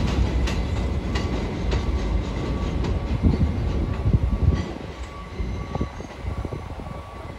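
Elevated subway train pulling away over a junction, its wheels clicking and clacking over the switches and rail joints under a steady rumble. The sound drops away about four and a half seconds in as the train recedes.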